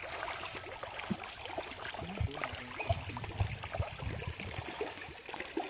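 Small splashes and water lapping as fish break the surface of a shallow river, a steady scatter of faint ticks over the river's flow.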